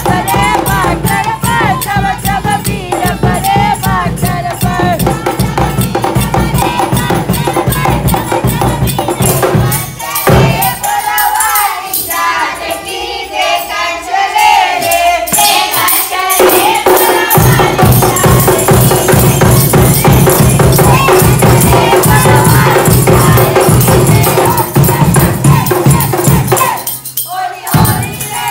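Group singing of Phagwah songs accompanied by a dholak drum and jingling percussion. About ten seconds in, the drum drops out for several seconds while the singing carries on, then comes back in.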